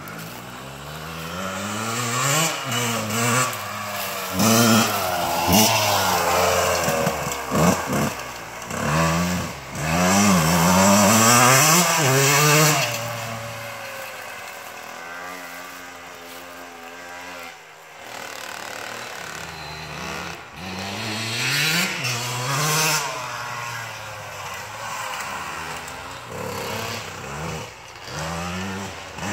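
Two freshly rebuilt two-stroke dirt bikes, a Yamaha YZ125 and a Kawasaki KX85, revving up and down repeatedly as they ride past. They are loudest in the first half, quieter and steadier in the middle, and rise and fall again near the end.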